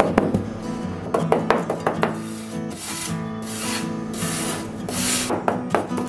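About four scraping strokes on wood, each about half a second long, in quick succession over acoustic guitar background music.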